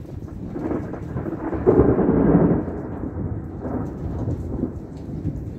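A roll of thunder rumbling over steady rain. It builds over the first two seconds, peaks about two seconds in, swells once more near four seconds, then tails off.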